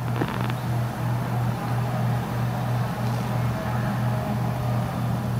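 Small electric fan running: a steady low motor hum with an even airy hiss over it.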